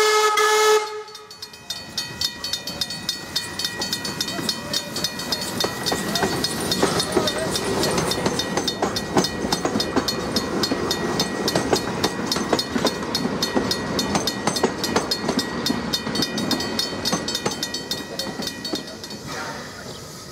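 NZR F class 0-6-0ST steam tank locomotive sounding its steam whistle, which cuts off about a second in. The locomotive and its wooden passenger carriages then roll past over a level crossing, and the rumble and wheel clatter are loudest in the middle. A level-crossing bell rings rapidly and steadily throughout, and stops near the end.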